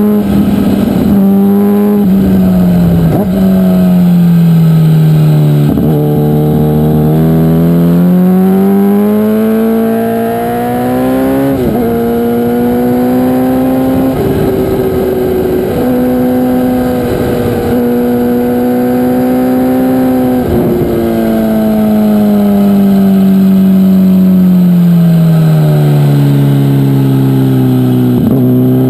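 MV Agusta Brutale motorcycle engine at full track pace: the revs fall over several seconds while braking and downshifting into corners, then climb hard again under acceleration, with abrupt steps at the gear changes.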